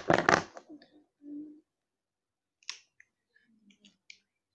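A loud clatter of handling and movement at the start, then a few small sharp clicks spread over the last two seconds: Copic alcohol markers being handled and a cap clicked off.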